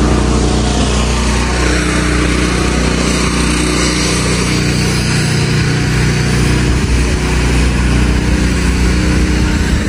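Steady mechanical drone of a moving vehicle: a constant low hum under an even rushing noise, with no change in pace.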